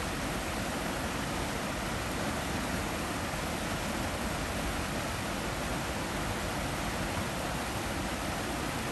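Shallow stream rushing over rocks in small rapids: a steady, even rush of water with no breaks.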